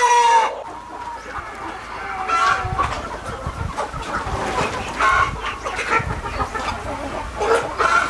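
A flock of desi chickens clucking and calling, with a rooster's long crow ending about half a second in and short calls scattered through the rest.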